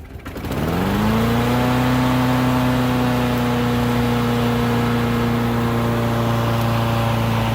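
Small lawn mower engine catching and running up to speed within about a second, then holding a steady high speed.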